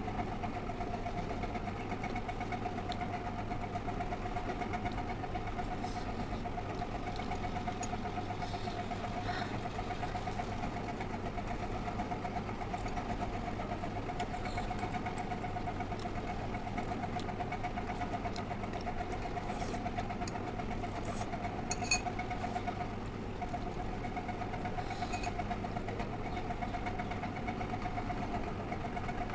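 A steady mechanical hum with a constant whine that does not change, with a few faint clicks and one sharper tap about 22 seconds in.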